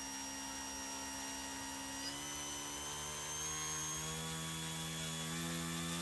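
Brushless electric motor spinning the RC plane's propeller at low throttle, a steady whine. About two seconds in, its pitch rises over a couple of seconds and then holds higher as the throttle is eased up and the current draw climbs.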